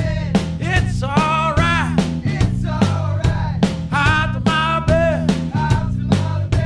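Rock music with a steady drum beat and sliding melodic notes.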